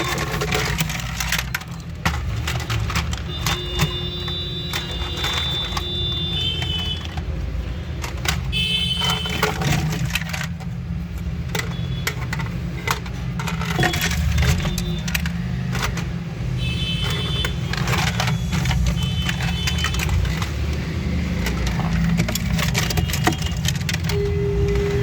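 Plastic toy gun being handled, with many irregular clicks and rattles over a steady low rumble, and short high electronic beeps a few times.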